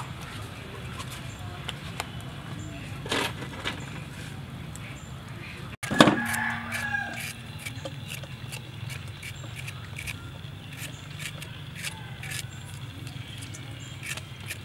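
Faint crackling from a charcoal grill at the start. About six seconds in a chicken calls, the loudest sound here. After that come short scraping strokes of a hand shredder cutting strips off a green fruit, about two a second.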